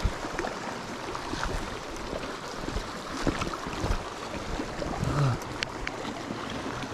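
Small creek water running and splashing, with scattered light knocks and clicks, and a short low voice sound about five seconds in.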